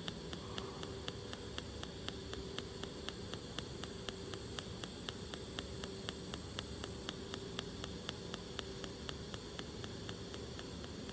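Pulsed DC TIG arc welding stainless steel: a steady low hiss with a rapid, even ticking from the arc pulsing several times a second.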